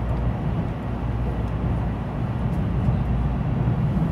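Tokaido Shinkansen Kodama train running, heard from inside the passenger car: a steady low rumble of the running gear with no separate events.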